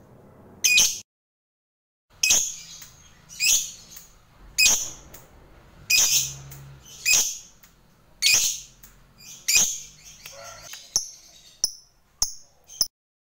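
A lovebird giving a string of sharp, high-pitched calls, about one every second and a quarter, the calls turning shorter and quicker near the end.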